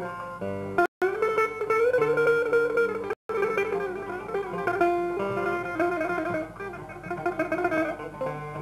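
Turkish folk tune played on a bağlama (long-necked saz) and a cümbüş, plucked strings with a bright, banjo-like ring from the cümbüş. The sound cuts out completely for an instant twice, about a second in and again a little after three seconds.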